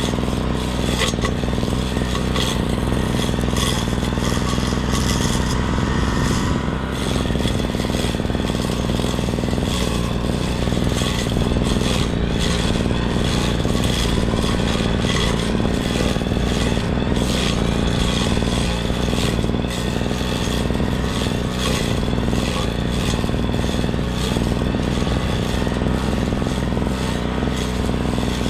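Brush cutter engine running steadily at working speed, with irregular scraping and clattering as it cuts grass.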